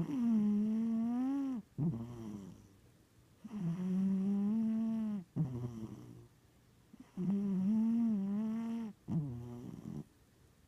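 Domestic cat snoring loudly in its sleep. There are three long, pitched snoring breaths about three and a half seconds apart, each followed by a shorter, softer breath.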